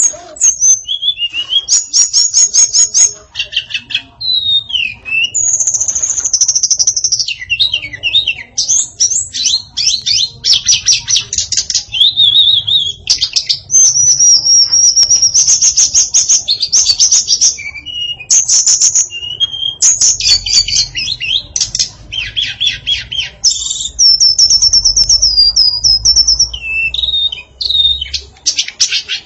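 Female tledekan, a blue flycatcher, singing a fast, varied song of high whistled phrases, rapid trills and quick runs of repeated notes, with only brief pauses.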